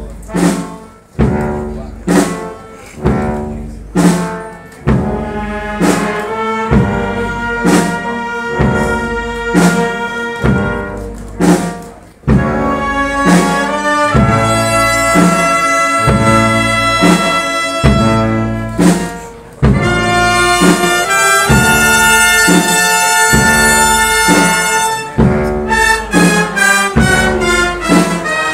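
Brass band with trumpets and trombones playing a slow march, with a drum stroke about once a second.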